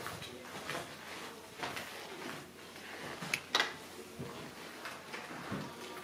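A few light clicks and knocks of a door being opened and handled, over quiet room tone; the sharpest knock comes about three and a half seconds in.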